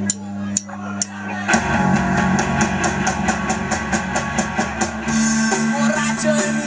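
Live amateur rock band: three sharp clicks about half a second apart, a drumstick count-in, then about a second and a half in the full band starts together with drum kit, electric guitars and bass, cymbals ticking out a steady beat.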